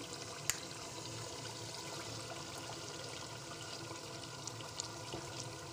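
A single finger snap about half a second in, a sharp click, over a steady hiss that runs throughout.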